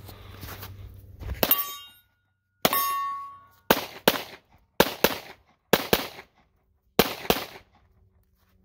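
About ten pistol shots, mostly in quick pairs, at steel targets. After each of the first two shots a steel plate rings with a clear tone for up to a second.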